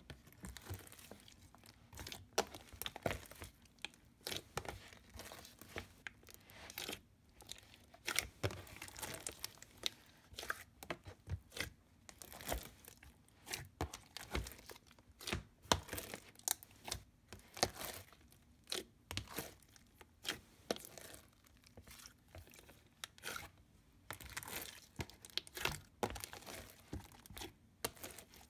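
Slime being kneaded, stretched and folded by hand, giving a steady run of short irregular sticky clicks and pops, several a second.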